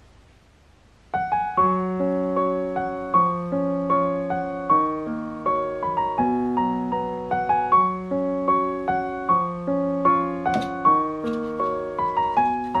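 Piano background music: a gentle melody of single notes over held lower notes, starting suddenly about a second in.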